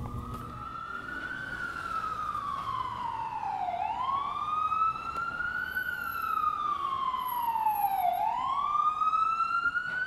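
Emergency vehicle siren in a slow wail: its pitch falls gradually, then sweeps quickly back up and climbs again, in a cycle of about four seconds.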